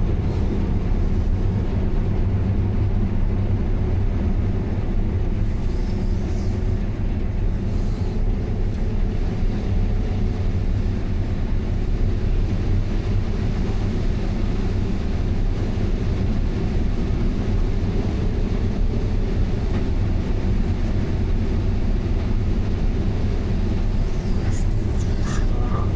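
Combine harvester running steadily while harvesting corn: a constant low engine and machinery drone.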